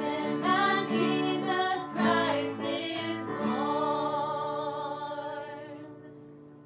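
Three women singing in harmony with acoustic guitar, closing the song on a long held final chord about three and a half seconds in that fades away near the end.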